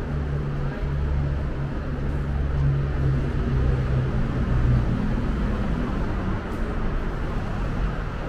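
Road traffic: a steady low engine hum over road noise, its pitch dipping slightly about halfway through.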